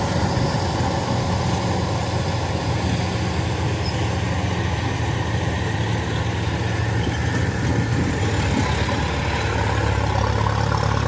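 Kubota DC-105X crawler rice combine harvester running steadily under load while cutting rice, its diesel engine and threshing machinery a continuous drone that grows a little louder near the end as the machine draws close.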